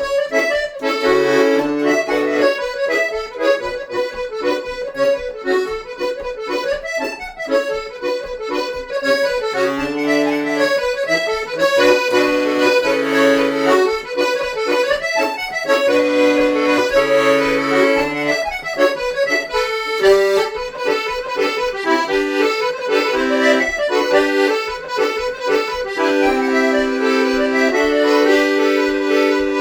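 Accordion playing a lively Irish traditional dance tune: a fast, steady run of melody notes over low held bass notes.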